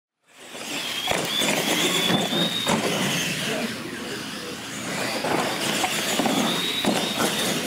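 Radio-controlled monster trucks racing on a concrete floor: their motors whine, rising in pitch twice, over the rumble of tyres, with a few sharp knocks along the way.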